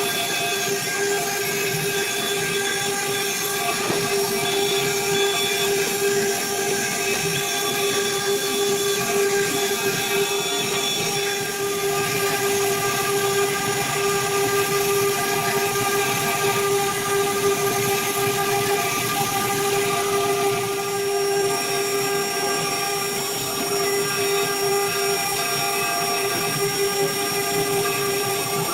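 CNC engraving router's spindle motor running at a constant speed while cutting, a steady whine with several overtones over a hiss of cutting noise.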